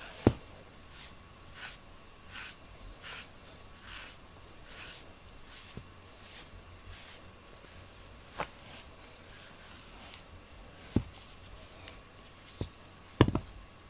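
FURminator deshedding tool raking through a cat's thick fur in steady strokes, about one every three-quarters of a second, each a soft scratchy rasp as loose undercoat is pulled out. A few sharp clicks and knocks come between the strokes, the loudest near the end.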